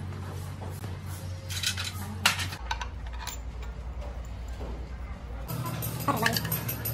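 Metal clinks of a socket on a long extension bar knocking against bolts and the gearbox's cast housing as the bolts are fitted and turned. There are a few sharp clinks about two seconds in and more near the end, over a steady low hum.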